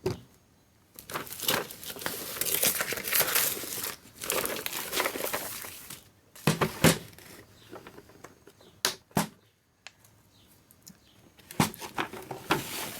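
Packaging being crinkled and torn open in long rustling stretches, with a few sharp clicks in between.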